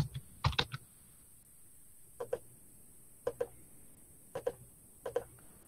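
Computer keyboard and mouse clicks: a few quick keystrokes at the start, then separate clicks that each come as a quick double tick, about one a second, as options are ticked in a dialog box.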